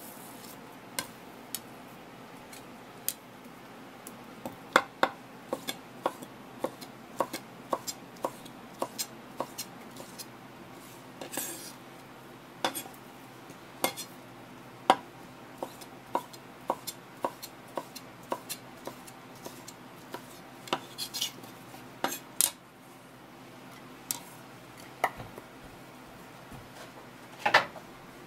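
Kitchen knife slicing a halfbeak (sayori) fillet into thin strips on a wooden cutting board: a series of sharp knife taps on the board, roughly one to two a second, with a louder clatter near the end.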